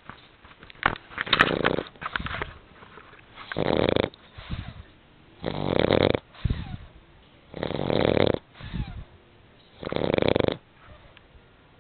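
A sleeping dog snoring in a steady rhythm, five snores about two seconds apart, with shorter, softer breaths between them.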